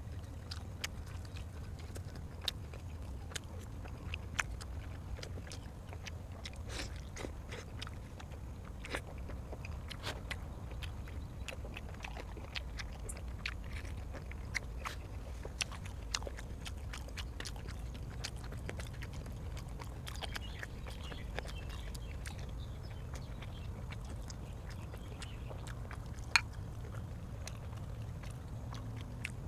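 A person chewing and biting food close to the microphone: many small wet clicks and crunches scattered throughout, one sharper click near the end, over a steady low hum.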